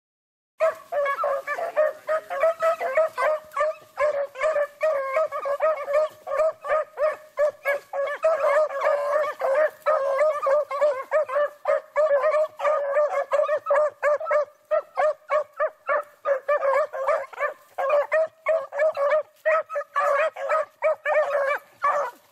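A pack of beagles baying on a rabbit's scent: many short, rapid, overlapping calls that start about half a second in and keep up without a pause.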